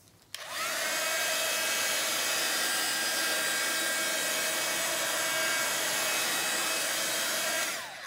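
A small handheld electric hot-air blower is switched on over wet acrylic paint. Its motor whine rises as it spins up, then it runs steadily with a loud rush of air, and the whine falls away as it is switched off near the end.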